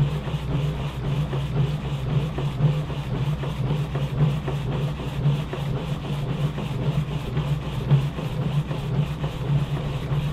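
Band sawmill running steadily, its blade cutting lengthwise through a log, with a low mechanical drone and a faint regular pulsing.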